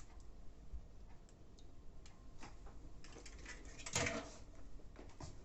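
Faint, scattered clicks and light taps of eggs being separated and kitchen utensils handled, with a brief louder clatter about four seconds in.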